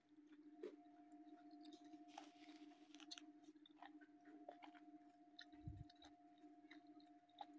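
Near silence: a faint steady electrical hum with scattered soft clicks and a dull low bump a little past the middle, like small handling sounds.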